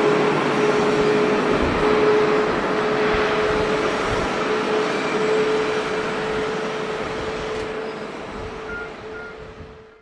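Jet airliner engines running loud, a steady rushing noise with a constant whine through it, slowly fading away.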